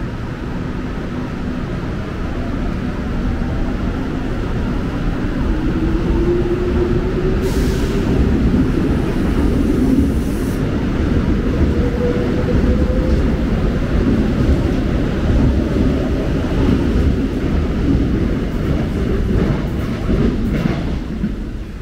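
Seoul Subway Line 1 electric train running along the station platform: a loud, steady rumble of wheels on rails that builds over the first few seconds and fades near the end. Partway through, a motor whine rises in pitch, and a hiss lasts about three seconds.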